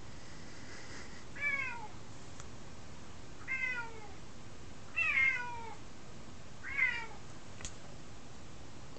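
F2 Savannah cat meowing four times, roughly every two seconds; each meow is short and falls in pitch. These are attention-seeking calls from a spayed cat that keeps on talking.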